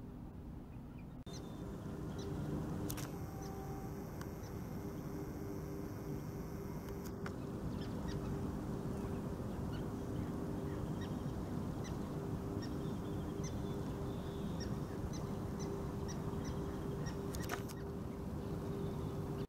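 Animal calls over a steady low drone, with short high chirps scattered through.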